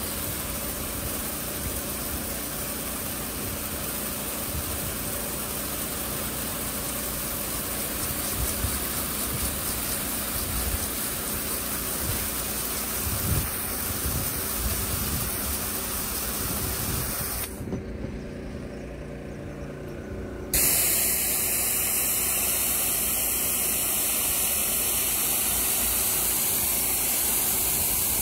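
Moss-treatment spray hissing from a hose spray gun onto terracotta roof tiles, with a steady mechanical hum underneath. The hiss thins out briefly about 18 seconds in, then comes back abruptly louder and brighter as the nozzle is close.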